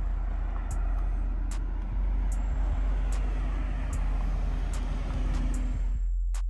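Lamborghini Huracán Evo's naturally aspirated V10 idling, a steady low rumble that cuts off about six seconds in. Faint ticks come about once a second.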